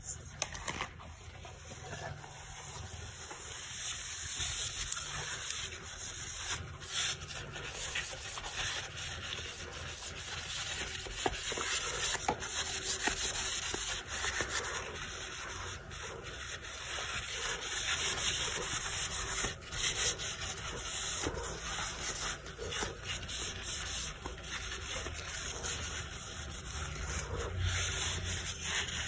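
Continuous hand scrubbing on the dusty parts of a GeForce GTX 1060 graphics card: a rasping rub made of quick strokes, with brief pauses about 7 and 20 seconds in.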